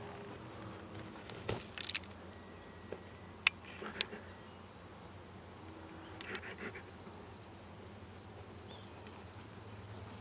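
A cricket chirping steadily, short high chirps at one pitch about three times a second. A few sharp clicks and taps break in around the second to fourth seconds and again past the middle.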